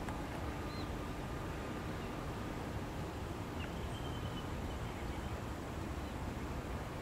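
Steady low outdoor background rumble, with a few faint, short, high bird calls about a second in and around four seconds in.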